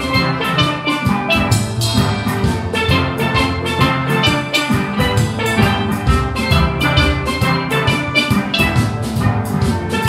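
Steel band playing: many steel pans struck with mallets, ringing pitched notes in a quick, even rhythm, with lower pans underneath.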